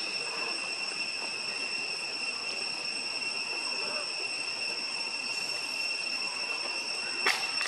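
Steady high-pitched insect drone, one unbroken whine over a faint outdoor hiss, with a single sharp click near the end.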